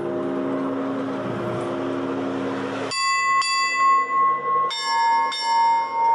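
Russian Orthodox church bells: the low, many-toned hum of a large bell rings on, then about three seconds in gives way abruptly to higher, smaller bells struck in a quick rhythm, each strike ringing on.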